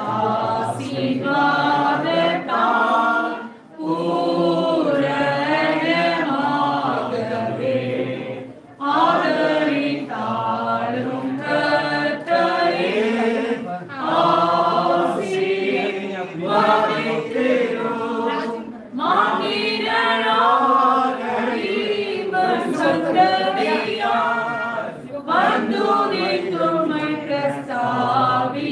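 A group of voices singing unaccompanied in phrases a few seconds long, with short breaks between phrases.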